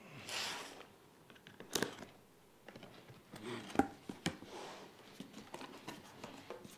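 A cardboard box being opened with a box cutter: the packing tape is slit and the flaps are folded back, with cardboard and plastic packaging rustling. A swish comes at the start, then a few sharp clicks and taps, the loudest just under two seconds in.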